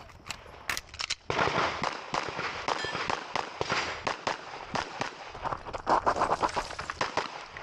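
Pistol shots fired in rapid strings, the cracks coming thick and fast, densest in the last couple of seconds.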